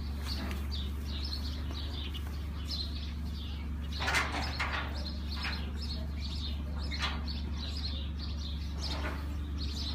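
Small birds chirping repeatedly over a steady low hum, with a few brief rustling knocks about four, seven and nine seconds in.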